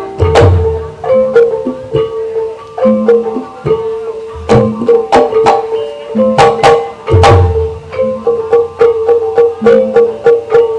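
Live music for an ebeg trance dance: tuned percussion plays a repeating melody over steady sharp drum strokes, with deep booms about half a second in and again about seven seconds in.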